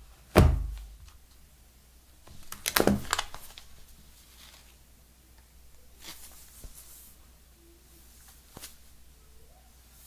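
Shrink-wrapped cardboard phone boxes handled on a table: a box set down with a solid thunk about half a second in, a cluster of knocks and taps around three seconds in, then faint rustling and a single tap near the end.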